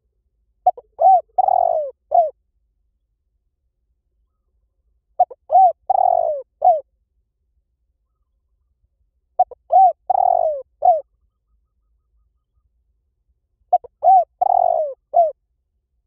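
Spotted dove cooing: four repeated phrases, each a few short coos around one longer coo, coming about every four seconds.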